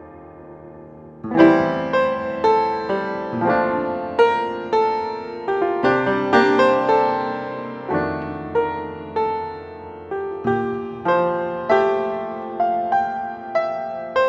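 Background piano music: a soft held chord, then a melody of struck notes at an even, unhurried pace from about a second in.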